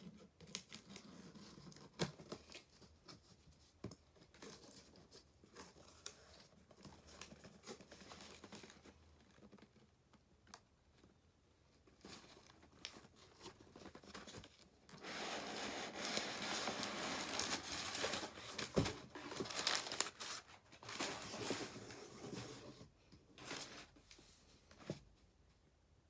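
Paper packaging being handled and unwrapped: rustling and crinkling with scattered light taps and clicks, building into a longer stretch of steady crinkling a little past the middle.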